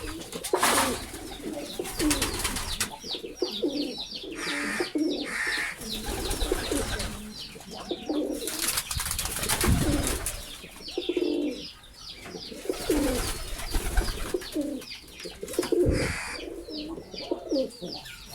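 Domestic pigeons cooing over and over, several birds overlapping, with quick high chirps alongside.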